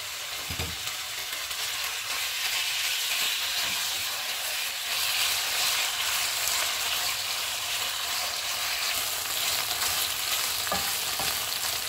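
Raw chicken strips sizzling steadily in hot oil in a non-stick wok over high heat, stirred with a wooden spatula, with a couple of light knocks of the spatula against the pan.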